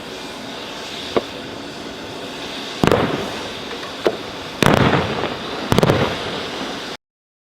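Military live-fire weapons shots and blasts over a steady background rumble: three loud booms with rolling decay, about three seconds in and twice more over the next three seconds, the later two made of several quick shots, with smaller cracks between them.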